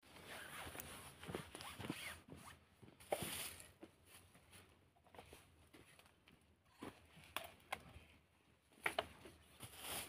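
Broom bristles scraping over bare earth in short rasping strokes, loudest in the first few seconds, followed by scattered light snaps and clicks.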